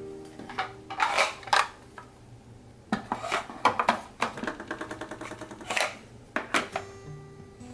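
Clear plastic organiser cases and small items knocking and rattling as they are set into a drawer: several short clusters of light clacks.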